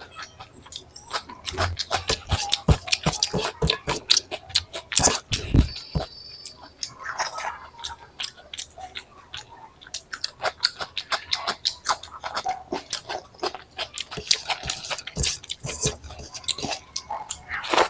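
Close-miked chewing and mouth sounds of a person eating curry and rice: a dense, irregular run of wet smacking clicks and bites.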